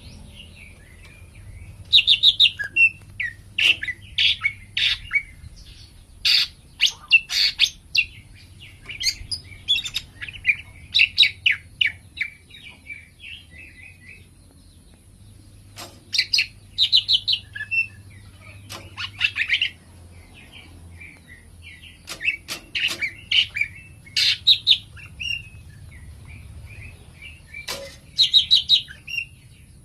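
Green leafbird (cucak ijo) singing in lively bouts of rapid, varied phrases a few seconds long, with short pauses between them.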